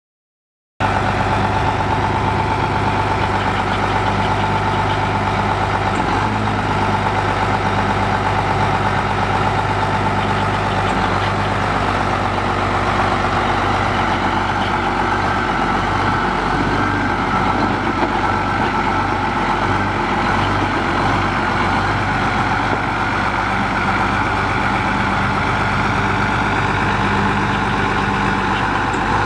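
Case six-cylinder diesel engine of a 1985 Case IH 3594 tractor running steadily at an even, idle-like speed. The sound cuts in about a second in.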